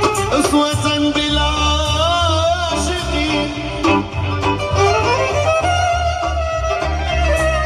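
Live band music amplified in a room: a steady, bass-heavy beat under a melody line that wavers with vibrato and slides up in pitch about five seconds in.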